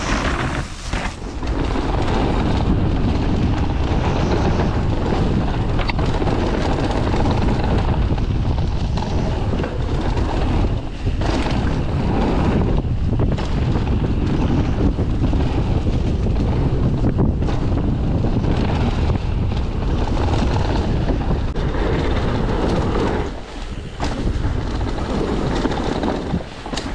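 Wind buffeting the camera microphone and knobby tyres rolling over packed dirt as a Mondraker Foxy full-suspension mountain bike is ridden fast down a trail, with occasional knocks from the bike over bumps.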